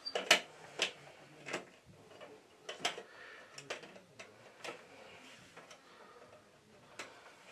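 Irregular sharp plastic clicks and ticks as a top screen is pushed into a water-filter control valve and twisted by hand to lock it in place.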